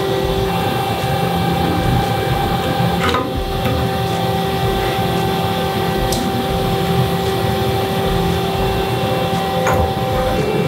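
Steady hum of a Makino A81nx horizontal CNC machining center with its tool magazine open, broken by a few sharp clicks, about three seconds apart, as an HSK100 tool holder is handled and seated in a magazine gripper pot.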